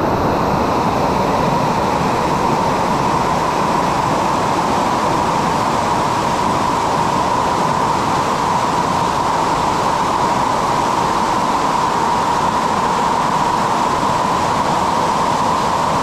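Waterfall: falling water rushing in a steady, loud, unbroken wash.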